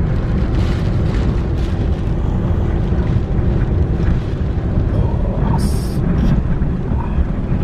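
Typhoon-force wind buffeting the microphone in a loud, continuous low rumble, with a short hiss about six seconds in.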